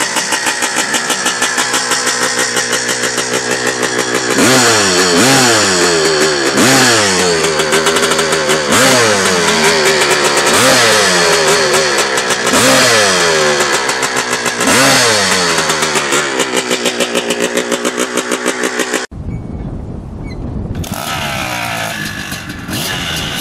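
1984 KTM 495 two-stroke single idling with a pulsing beat, then blipped six times, about one rev every two seconds, before settling back to idle. Near the end a sudden cut brings in a windier recording of a 2009 Maico 700 two-stroke running.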